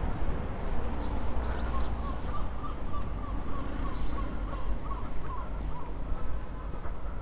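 Small birds chirping repeatedly in short, quick notes over a low, steady outdoor rumble.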